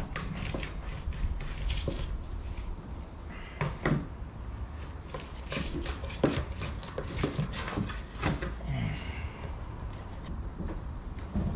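Irregular clicks, taps and scrapes of a hand tool working at the frame of a uPVC glazed door, with a few sharper knocks among them.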